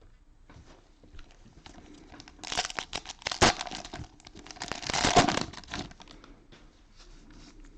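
Cellophane wrapper of a trading-card cello pack crinkling and tearing as the pack is opened, in two loud spells of about a second each, the first about two and a half seconds in and the second about four and a half seconds in.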